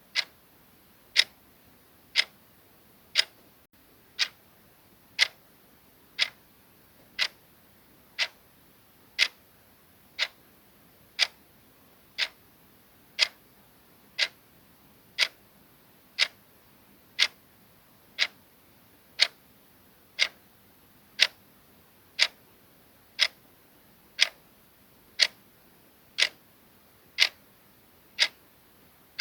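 Clock ticking sound effect: one crisp, even tick each second, steady and unchanging, the kind used to mark time on a countdown timer.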